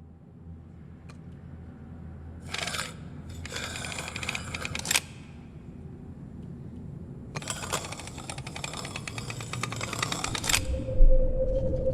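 A low rumbling drone that slowly grows louder, overlaid by three bursts of rapid rattling clicks, the last and longest lasting about three seconds. A steady hum-like tone comes in near the end.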